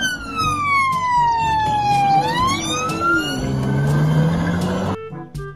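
Police car siren on the wail setting, one slow fall in pitch and then a rise, with the car's engine note climbing as it accelerates away. The sound cuts off abruptly near the end.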